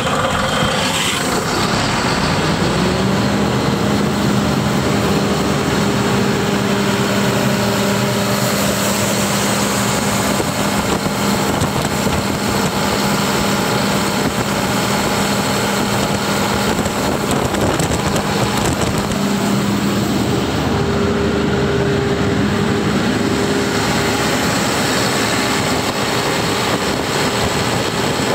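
Caterpillar 3306 inline-six diesel engine driving a Sullair air compressor, running loud and steady. Its pitch rises and settles to a steady speed about two to three seconds in.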